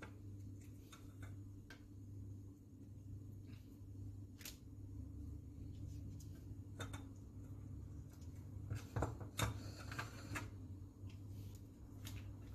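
Faint scattered clicks and taps of a pastry brush dipping into a small bowl and dabbing beaten egg yolk onto puff pastry patties, over a steady low hum. A denser, louder run of clicks comes about nine to ten seconds in.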